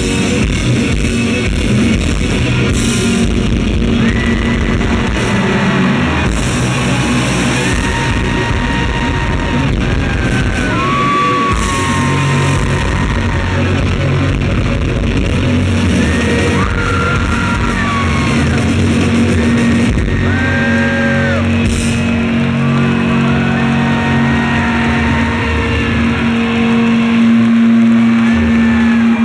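Rock band playing live: distorted electric guitars with long held and bending lead notes, over bass and drums.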